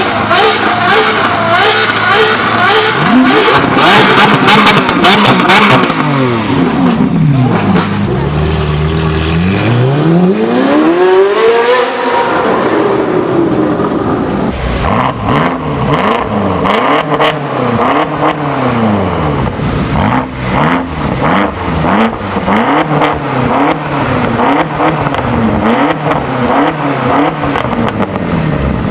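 Supercar engines revving hard. The engine first holds high revs, falls, then sweeps up and back down once; after a change midway, a series of quick rev blips rises and falls about once every second and a bit.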